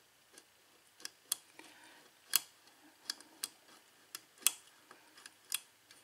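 A metal hook pick clicking and tapping against the pins inside a six-pin Ilco KIK lock cylinder with a Kwikset keyway as they are worked one by one from the back of the lock. The clicks are light and irregular, with a few louder ones, and no pin sets on this pass.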